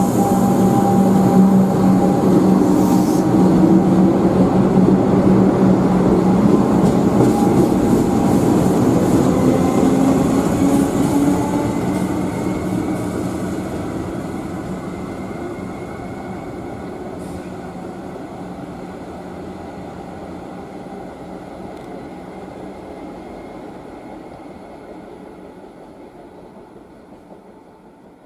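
A train running past on the line, loud for the first dozen seconds with a steady hum and tones rising in pitch as it gathers speed, then fading gradually as it moves away.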